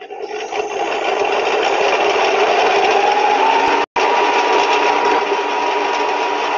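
A lab compressor stage's motor-driven rotor spinning up to half its design speed: a loud rush of air and machinery, with a tone that rises and then holds steady about three and a half seconds in. The sound cuts out for an instant about four seconds in.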